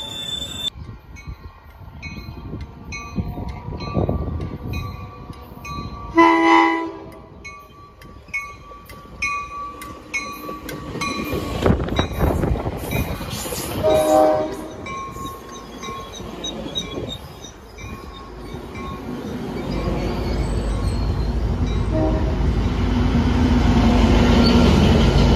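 A Coaster commuter train passing close by, its wheels rolling over the rails, while a level-crossing bell dings about twice a second. A train horn sounds loudly about six seconds in and again, more briefly, near the middle. Near the end the diesel locomotive comes alongside, and its low rumble swells.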